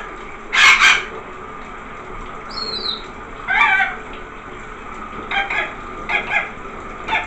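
Rainbow lorikeet bathing under a running shower: a steady hiss of falling water, with a loud splash just under a second in and several short squawks and splashes as it flaps in its water tub. A brief high descending whistle comes about two and a half seconds in.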